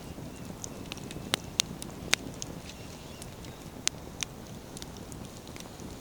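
Wood campfire burning, a steady low rustle of the flames with irregular sharp crackles and pops of splitting firewood.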